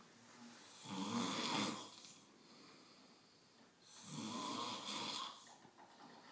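Pig snoring: two long snores about three seconds apart, each lasting over a second.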